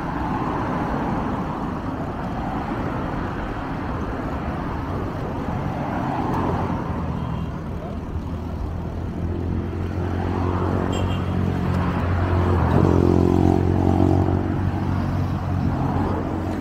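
Road traffic running alongside, a steady rush of noise. Partway through, a motor vehicle's engine hum swells, is loudest about three-quarters of the way in, and fades again as it passes.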